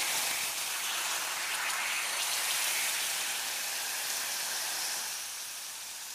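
Meat sizzling on a hot grill: a steady, dense hiss that drops a little in level about five seconds in.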